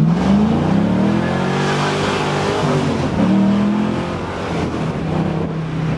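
LS3 V8 of a 1969 Camaro convertible accelerating hard: the engine note climbs, drops at a gear change about three seconds in, climbs again, then settles to a steady note near the end.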